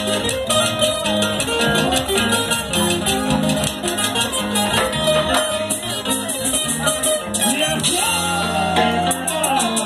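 Live band playing amplified dance music: strummed acoustic guitars over bass and percussion with a steady beat.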